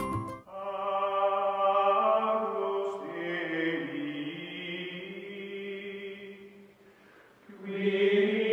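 Outro music: slow, chant-like choral singing in long held notes. It fades down about seven seconds in and swells back a moment later.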